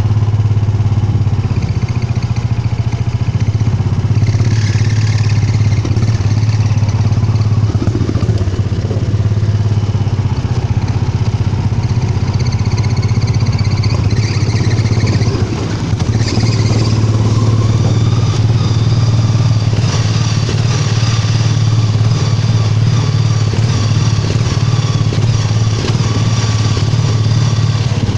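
Engine of a homemade rat rod go-kart running steadily as it drives slowly, at about 10 mph or less, with a deep low hum and a brief easing off about fifteen seconds in.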